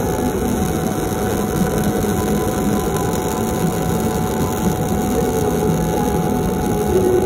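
MIG welding arc on steel pipe fed with 0.9 mm solid wire, burning steadily with a continuous crackling buzz that holds an even level throughout.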